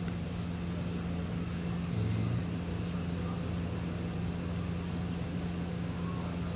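Steady low hum with a strong constant tone, and a brief louder low note about two seconds in.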